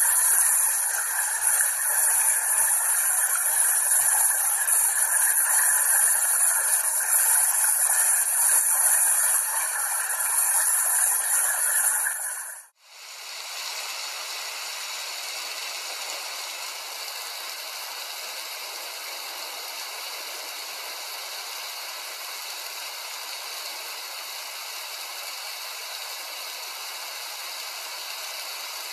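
Steady rain falling. About halfway through it drops out for a moment and comes back quieter and less bright.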